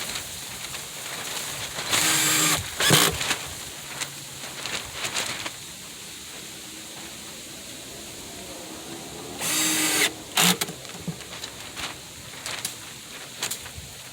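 A power drill driving screws into plywood in two short runs, each about half a second, with knocks and handling clicks between them.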